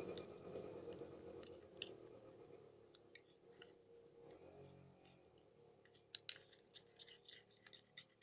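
Faint sticky clicks and pops of slime being stirred in its container, coming quicker toward the end. A passing motorbike's engine fades away in the first few seconds.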